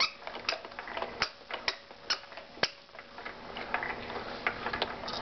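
Sharp mechanical clicks repeating about twice a second, growing fainter and less regular after about three seconds in.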